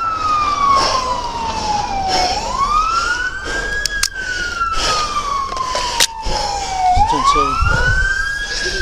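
Police car siren on a wail, its pitch climbing quickly and then falling slowly in cycles of about five seconds. Two sharp clicks cut through it partway.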